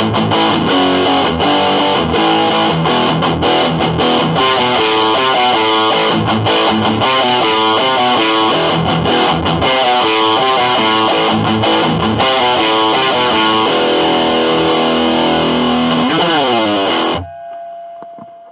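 Electric guitar riffing with heavy distortion from a Digitech Death Metal pedal, played through a small Squier amp with an 8-inch speaker: fast, dense notes, then a sliding drop in pitch. About 17 seconds in the playing cuts off sharply, leaving one faint note that fades away.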